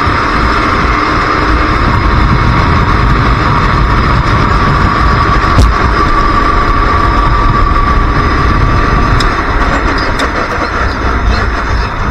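Racing kart engine running hard at high revs, its steady high note fading as the throttle eases about two-thirds through, over heavy low rumbling wind noise on the microphone.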